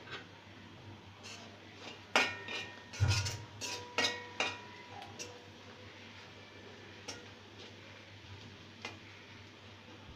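A spatula clinking and scraping against a metal pan as ground spices are stirred into a thick frying masala. There is a cluster of sharp knocks with a short metallic ring about two to four and a half seconds in, then a few scattered taps.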